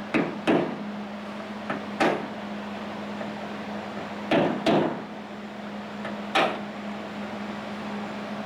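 Hammer knocks on a car's sheet-metal body panel, used to close up gaps: six sharp knocks at uneven intervals, two close together near the start and two more about halfway, over a steady low hum.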